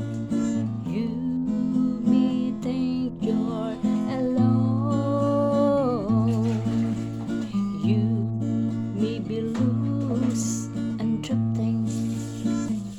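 Instrumental music: acoustic guitar strumming steady chords with a bass line, under a gliding melody line, as the introduction to a gospel song before the singing begins.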